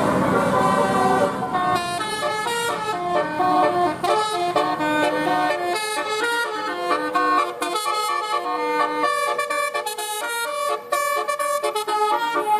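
Horn tones sounding a rapid run of changing notes, like a tune, with a busier, noisier start in the first second or so.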